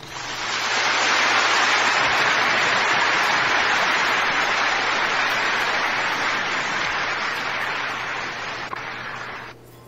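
A steady rushing hiss with no clear pitch or beat. It swells in over the first second and fades out near the end, with a faint low hum underneath.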